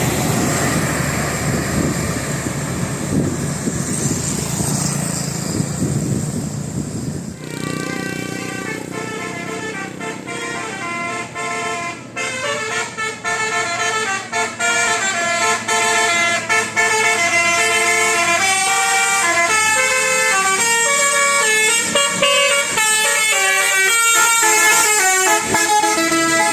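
A tour bus's telolet melody horn playing a long tune of several tones at once, stepping quickly from note to note, from about seven seconds in. Before it there is a steady noisy rumble with no clear tone.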